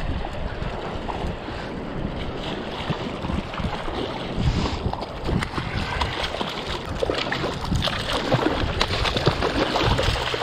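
Shallow surf water sloshing, with wind on the microphone and splashing that picks up in the second half as a hooked bluefish thrashes at the surface close by.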